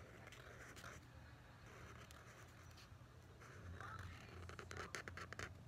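Marker tip scratching faintly across notebook paper in short tracing strokes, with a quick run of strokes near the end.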